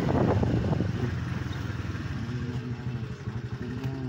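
Motorcycle engine running at low speed as the bike rolls slowly, easing off towards the end, with some rattle early on.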